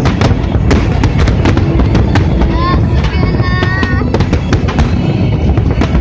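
Fireworks display: aerial shells bursting in quick succession, a dense run of bangs and crackles over a continuous low rumble.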